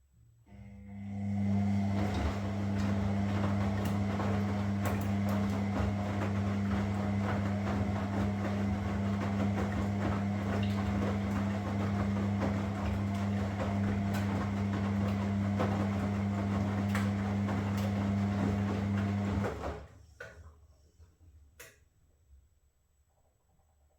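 Washing machine running with a steady electric hum and a rushing, rattling water noise for about nineteen seconds. It cuts off abruptly, followed by a couple of faint clicks.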